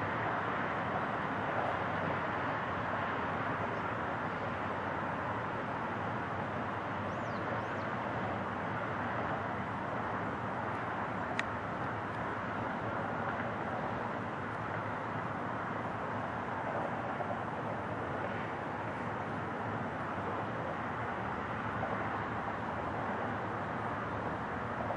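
Steady outdoor background rumble and hiss that neither rises nor falls, with one sharp click about eleven seconds in.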